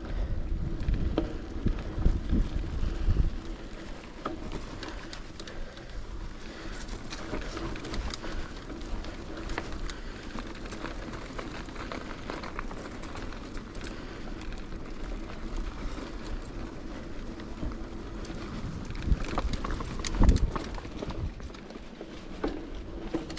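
Riding noise of a bicycle in motion: wind buffeting the microphone, heaviest in the first three seconds, over a steady rush of tyre and drivetrain noise with scattered clicks and a knock about twenty seconds in.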